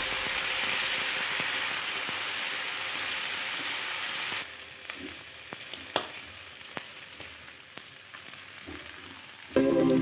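Shrimp heads, chicken bones, ginger and garlic sizzling in hot oil in a nonstick frying pan as they are stir-fried with a silicone spatula until fragrant, the first stage of a shrimp-and-chicken stock. The sizzle is steady and then drops to a quieter level about halfway, with a few light taps of the spatula on the pan.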